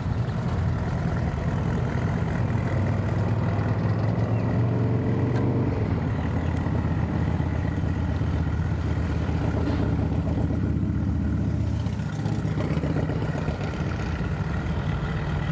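An engine running steadily with a low hum, its pitch stepping down a little about six seconds in and shifting again near the end.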